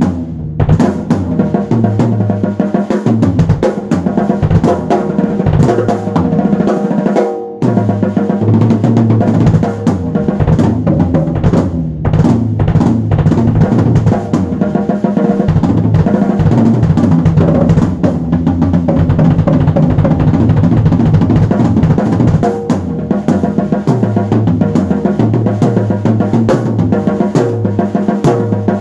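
Drum kit playing with kick, snare and rolls over a pitched bass line, with a short break about seven and a half seconds in.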